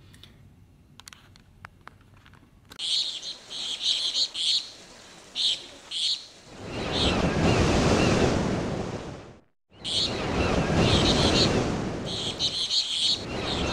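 Birds chirping over a steady rush of surf, starting about three seconds in. The rush swells up, cuts out abruptly for a moment a little after the middle, then comes back with the birds.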